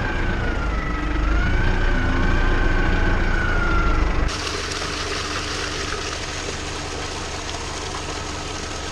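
Tractor-driven farm machinery running, a heavy engine rumble with a high whine that wavers in pitch. About four seconds in it cuts abruptly to a steadier, hissier machine noise with much less rumble.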